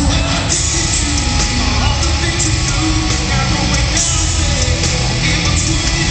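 Live rock band playing loud: electric guitars and drums with a singer on the microphone, the mix dense and steady throughout.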